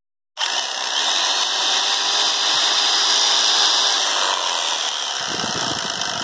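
Old Makita jigsaw switched on about a third of a second in and running steadily unloaded, a loud, high-pitched motor noise. A lower buzz joins near the end.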